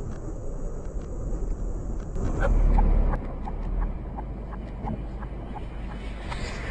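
Steady low engine and road rumble picked up by the dashcam, swelling into a heavy low boom about two and a half seconds in, around the moment the car is struck by the truck. Faint light ticks follow, about two a second.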